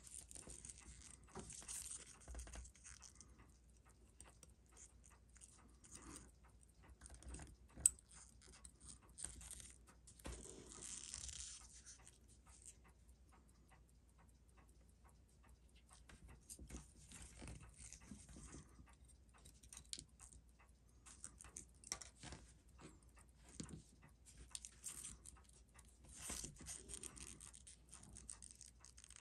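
Faint scattered clicks, taps and scraping of small objects being handled, with one sharper click about eight seconds in.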